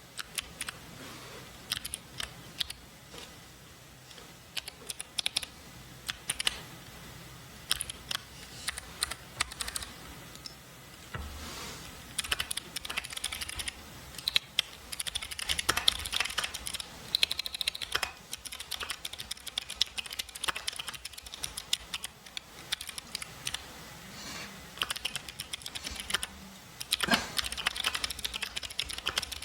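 Mechanical keyboard with clicky jade switches being typed on: irregular clicks and clacks, slow and scattered at first, then faster, denser typing from about twelve seconds in, with brief pauses.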